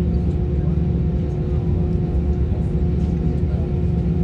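Airbus A321 jet engines idling, heard from inside the passenger cabin: a steady low rumble with a constant hum over it.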